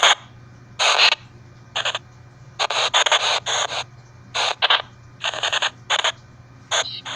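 A white-noise ghost box used for EVP, sputtering in short, irregular bursts of static a fraction of a second long, with quiet gaps between them, over a faint steady low hum.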